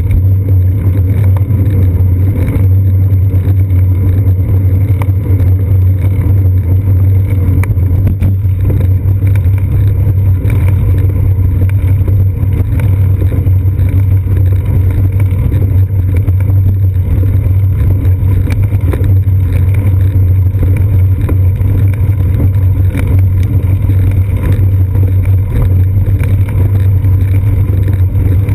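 Steady low rumble of wind and road vibration picked up by a bicycle's seat-post-mounted GoPro Hero 2 while riding quickly, with no distinct events.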